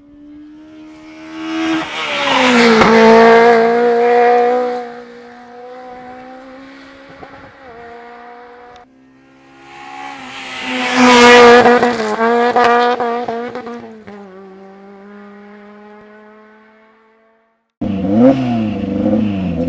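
Two rally cars pass at speed one after the other, each engine at high revs swelling to a loud peak and then falling in pitch as it goes by. Near the end, an engine close by revs up and down in quick succession.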